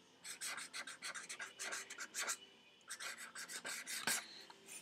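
Pen scratching across paper in a run of short strokes, writing a name in cursive, with a brief pause about two and a half seconds in.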